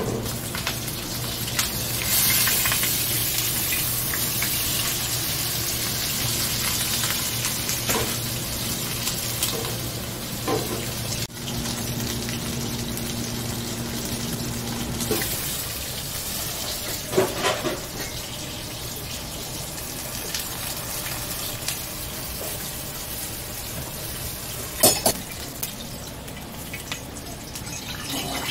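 Kitchen sounds: a steady hiss with a low hum through the first half and a few sharp clinks and knocks, the loudest about two thirds of the way in and near the end.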